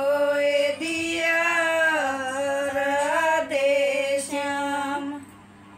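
A woman's voice singing a folk song unaccompanied, in long drawn-out notes, which stops about five seconds in.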